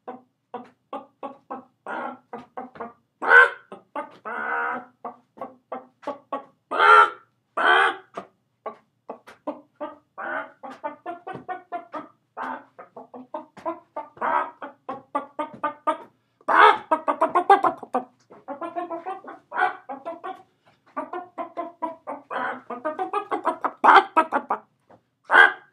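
A man's voice imitating a chicken: a long run of rapid "bok-bok" clucks broken by several louder, higher squawks, the alarm call.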